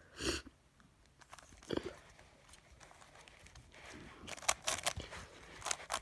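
Plastic Rubik's cube layers being turned by hand: scattered sharp clicks and clacks, with a quick flurry of them about four and a half to five seconds in and again near the end. A short breath-like rush of noise comes right at the start.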